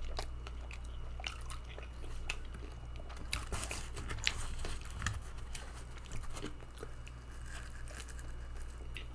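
A person chewing and biting into a thin-crust pizza slice close to the microphone: irregular small crunches and mouth clicks over a steady low hum.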